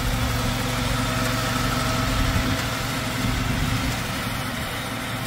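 The 10 HP petrol engine of a Sraja R525 power weeder runs steadily while its front reaper attachment cuts standing wheat. It grows a little fainter near the end.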